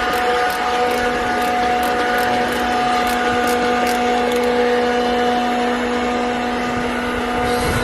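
A steady machine hum at a constant pitch. Light, sharp ticks come about two or three times a second during the first half, then stop.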